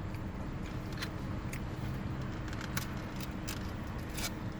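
Scattered light clicks and taps of a utensil against a takeout food container, over a steady low hum.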